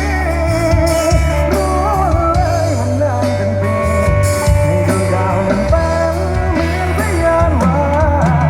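A band playing a song with a lead singer, over a steady bass line and drums.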